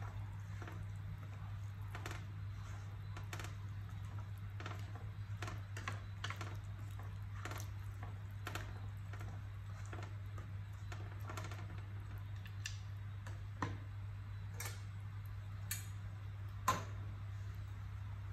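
Wooden spatula clicking and scraping against a metal wok while stirring broccoli florets in water: irregular light taps, with a few sharper knocks toward the end, over a steady low hum.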